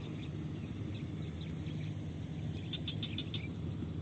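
Marsh ambience: a steady low rumble with a quick run of short, high chirps, about six a second, near three seconds in.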